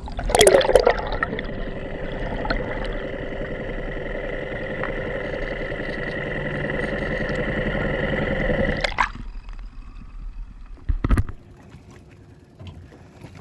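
Underwater recording of a boat's motor running: a short splash-like sweep as the camera goes under, then a steady whine with several held tones that cuts off abruptly about nine seconds in. After that there is quieter background noise on the boat and a short low thump near the end.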